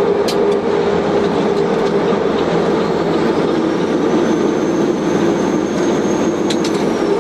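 A vehicle horn blaring continuously over loud rumbling road or rail noise, its pitch sagging slightly lower near the end.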